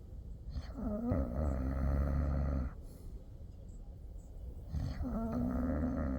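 Snoring: two long, low snores about four seconds apart, each lasting about two seconds and starting with a fluttering rattle.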